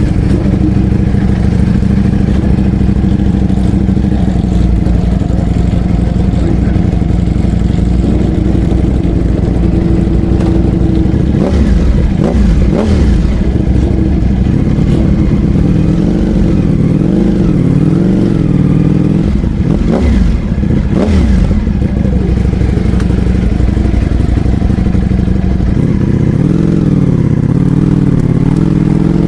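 Ducati Panigale V4 R race bike's V4 engine running loud just after start-up: steady for the first ten seconds or so, then its engine speed rising and falling again and again with a few sharp blips.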